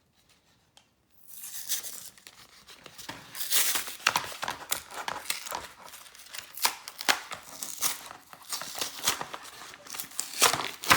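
Pokémon card packaging being torn open by hand: irregular tearing and crinkling of plastic and paper with sharp crackles, starting about a second in.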